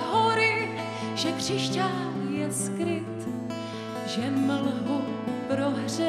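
Live folk band music: strummed acoustic guitar over a steady low bass, with a wavering melody line on top.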